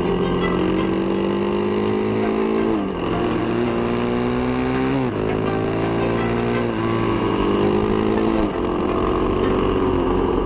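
Suzuki DRZ400's single-cylinder four-stroke engine under way, its revs climbing steadily and dropping sharply about four times as it shifts up through the gears.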